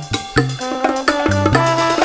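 Upbeat background music with drums, bass notes and a melody on top; any pouring or whisking is not picked out above it.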